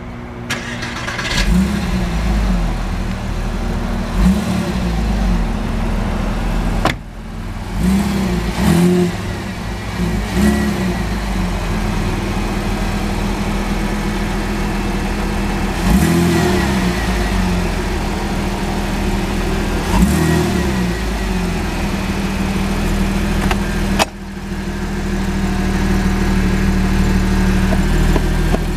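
Porsche Boxster S (986) 3.2-litre flat-six with a sport exhaust idling, blipped several times so the note rises and falls briefly. Two sharp knocks, one about seven seconds in and one near twenty-four seconds.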